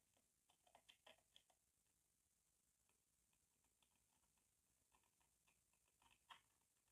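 Faint scattered clicks and taps, bunched about a second in and again near the end.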